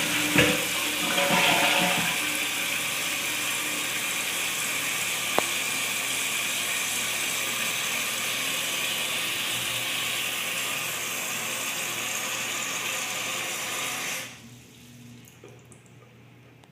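A 2013 Aqua Vista toilet finishing its flush, with the bowl gurgling down in the first two seconds. Then the fill valve hisses steadily as the tank refills, with the refill tube pouring into the tank instead of into the overflow tube. The valve shuts off suddenly about fourteen seconds in, leaving a faint trickle.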